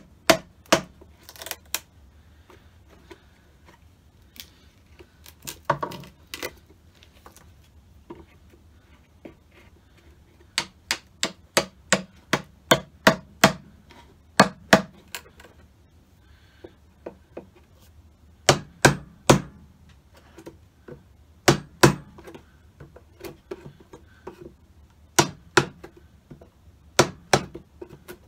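Mallet tapping a wood chisel to pare down a wooden board: sharp knocks in bursts of several, two or three a second, with pauses between the bursts.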